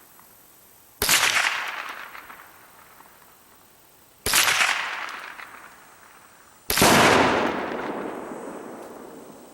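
Three loud bangs about two and a half to three seconds apart, each fading away in a long echo over a second or two: .22 rifle shooting at salute shells and firecrackers used as exploding targets.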